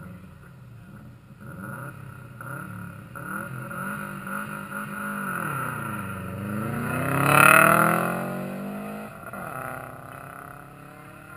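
Rally car on a gravel stage coming in, engine revs dropping as it slows, then climbing sharply under hard acceleration as it passes close by. Tyres spray gravel at the loudest moment, and the engine note falls away after it goes past.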